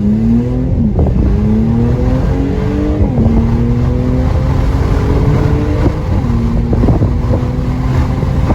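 Mercedes-AMG C43's twin-turbo V6 pulling hard through the gears on an AWE Track Edition muffler-delete exhaust. The engine note climbs and drops sharply at three upshifts, about a second, three seconds and six seconds in, heard from inside the car.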